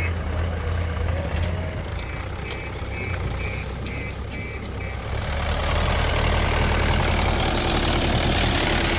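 Tractor diesel engine running steadily, with a reversing alarm beeping about twice a second in the first half. About halfway through the engine sound grows louder and fuller.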